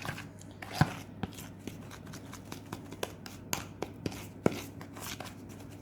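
A fork stirring thick cake batter in a mug: irregular clicks and scrapes of the metal against the mug's sides and bottom.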